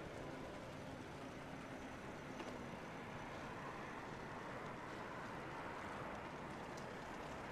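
Faint, steady hum of distant city traffic over a quiet street, with a faint steady engine-like tone in the first couple of seconds.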